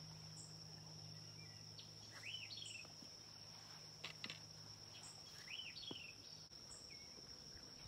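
Quiet outdoor ambience: a steady high-pitched insect trill, with a bird singing a short rising-and-falling phrase about every three seconds. A faint low hum underneath stops about six and a half seconds in.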